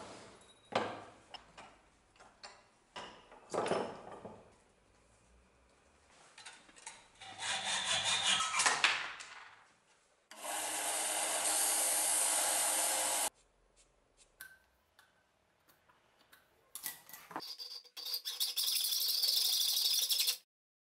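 Clanks and knocks as a cast-iron bench vise is worked and a steel bolt is clamped in it, then a hacksaw rasping through the bolt in several bursts of sawing strokes.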